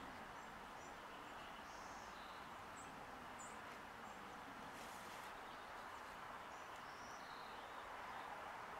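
Faint outdoor ambience: a steady hiss with a few short, faint bird chirps scattered through it.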